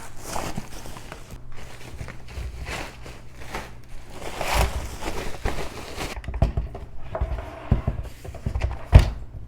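Unboxing noises: irregular rustling and handling of packaging as the coffee machine is unpacked, with a sharp knock near the end.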